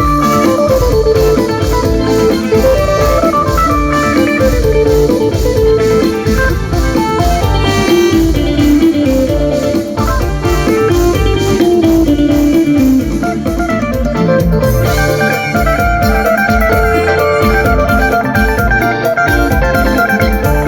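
Isan mor lam band playing an instrumental passage: an electric phin picks a quick melody over bass guitar and a steady drum beat.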